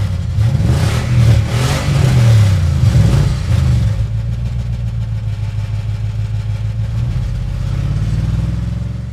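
Car engine revving up and down several times, then running at a steady speed and fading near the end.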